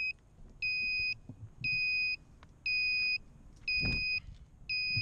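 An FPV quadcopter's onboard buzzer beeping, a high tone about half a second long repeating once a second, as a downed quad's lost-model alarm does. There is one low thump about four seconds in.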